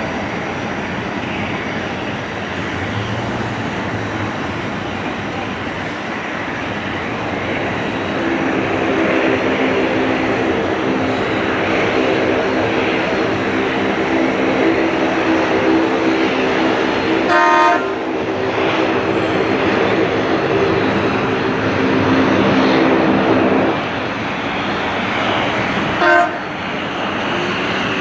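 Airbus A321 jet engines running as the airliner lands and rolls out on the runway: a steady roar, joined about eight seconds in by a droning hum of several steady tones that cuts off abruptly a few seconds before the end as the roar eases. Two short sharp sounds stand out, about two-thirds of the way through and near the end.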